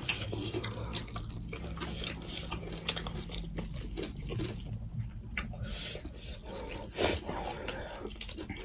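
Close-miked eating by hand: wet chewing, lip smacks and fingers squishing rice and curry, making a steady run of small wet clicks, with one louder click about seven seconds in.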